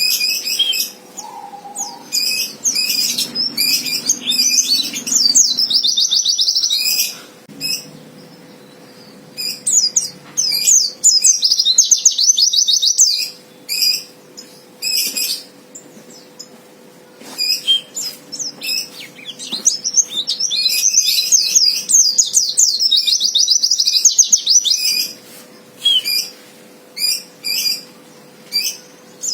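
Pleci (white-eye) singing a fighter song: several long, rapid, high-pitched chattering trills of a few seconds each, broken up by short chirps and pauses. This kind of song is used as a lure to provoke rival white-eyes into singing.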